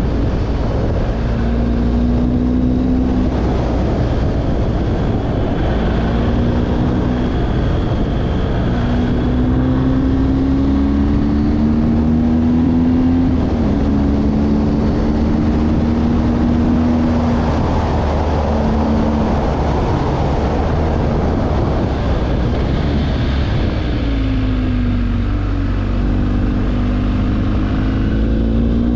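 Engine of a road vehicle under way, its pitch climbing and dropping back several times as it accelerates and eases off, with a sudden drop about halfway through. A steady rushing noise runs underneath.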